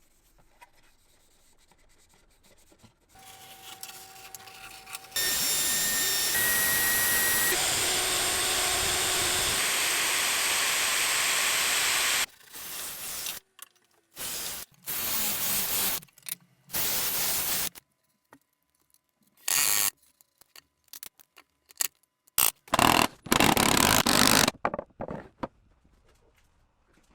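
Woodworking power tool noise. A loud, steady run of about seven seconds is followed by a string of short bursts that start and stop abruptly.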